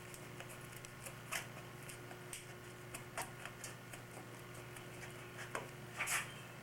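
Scattered light clicks and taps of hands handling tools and rudder parts at a workbench, over a steady low hum, with a louder brief rustle near the end.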